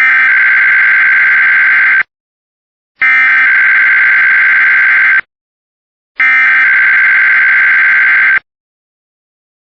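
Emergency Alert System SAME header: three identical bursts of buzzing digital data tones, each about two seconds long with about a second of silence between them, encoding the start of a Required Weekly Test.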